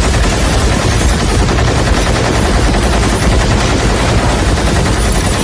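Continuous rapid fire from a giant multi-barrelled rotary machine gun, a dense unbroken rattle of shots, as mixed in a film soundtrack.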